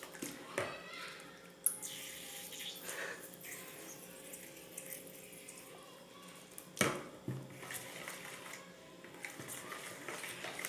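Boric acid water being poured and worked into a bowl of white-glue slime, with a few sharp knocks of utensil or container against the bowl.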